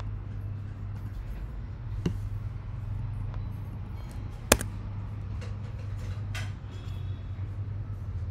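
A steady low hum with two sharp clicks, a light one about two seconds in and a much louder one about four and a half seconds in.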